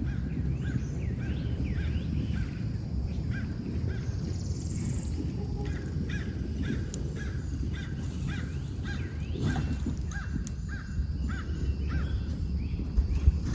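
Birds calling with many short, repeated calls over a steady low rumble.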